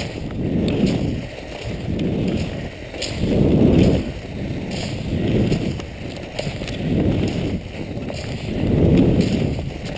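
A skier moving over snow: a swishing noise swells and fades in a steady stride rhythm, about every one and a half seconds, with light clicks in between.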